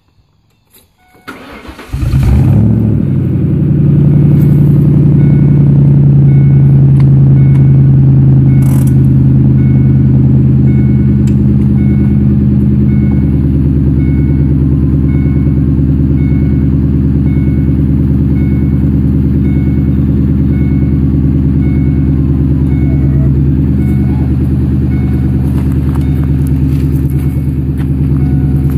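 A 1996 Ford Mustang GT's 4.6-litre V8 being started: a brief crank about two seconds in, then the engine catches and idles steadily. A thin chime repeats about once a second over the idle.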